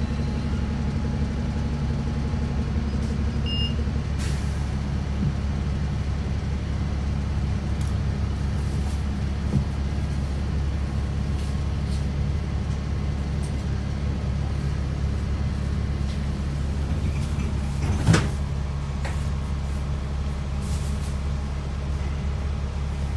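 City bus engine idling, a steady low rumble heard from inside the passenger cabin, with light rattles and one sharp knock about three-quarters of the way through.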